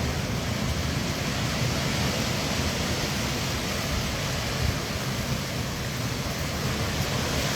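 Steady rush of wind and rain from a passing thunderstorm, with an uneven low rumble of wind buffeting underneath.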